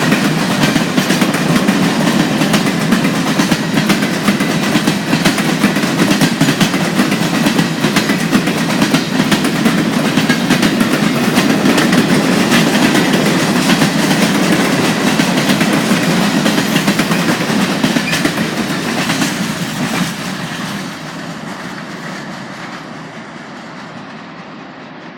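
Freight train cars rolling past at speed, steel wheels clicking over the rail joints with a steady rumble. The sound drops sharply about twenty seconds in and then fades away.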